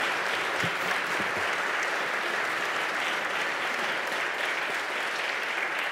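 A large audience of legislators applauding steadily.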